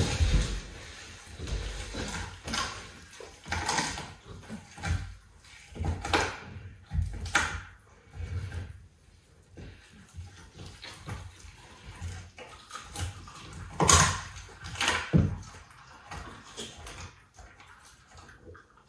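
Leopard chewing and tearing raw meat: irregular wet, crunching mouthfuls with pauses between them, the loudest about fourteen seconds in, mixed with the rustle and shuffle of a person settling onto the wooden floor nearby.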